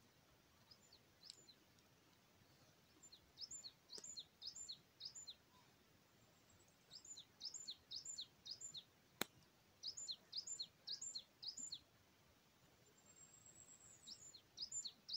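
A small songbird singing in phrases of quick, high, falling notes, about three notes a second, each phrase lasting about two seconds with pauses between. A single sharp click about nine seconds in.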